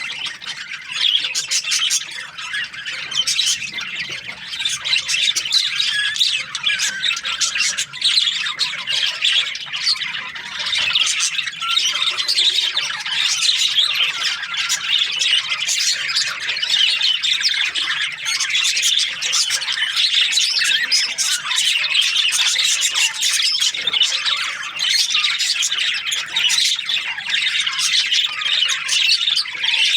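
A flock of budgerigars chattering, with many overlapping chirps and squawks in a continuous, busy din.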